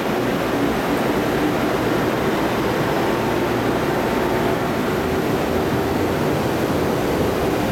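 JR Central 313 series and 211 series electric commuter train pulling out of the station, its cars rolling past at low speed with a steady running noise of wheels and traction motors.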